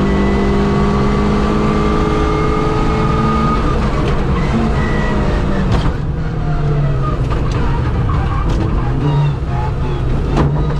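Suzuki Swift 1.3 GTi 4x4 rally car's engine heard from inside the cabin under hard driving. Its note drops at the start, as at a gear change, then climbs steadily for about three and a half seconds. Through the middle it breaks off and settles lower and uneven as the car slows, with a couple of sharp knocks, one about six seconds in and one near the end.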